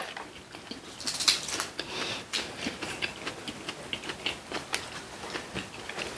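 Close-miked eating sounds: chewing with irregular small clicks and crackles, several a second.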